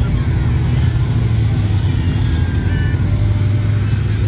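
Side-by-side (UTV) engines running with a steady, low drone.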